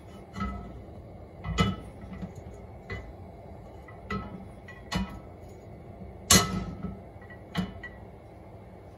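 Cast iron skillet clinking and knocking against the gas stove's grates as it is tilted to spread the oil, about seven sharp metallic knocks at uneven intervals, the loudest about six seconds in.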